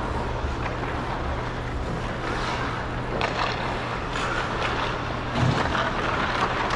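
Ice skate blades gliding and scraping on rink ice, a steady rushing noise with several sharper scrapes from about two seconds in.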